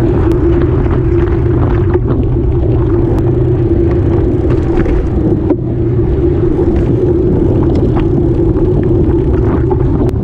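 Mountain bike rolling fast on asphalt, heard through a camera mounted on its frame: a steady tyre hum over a low, constant rumble, with a few small knocks from the road.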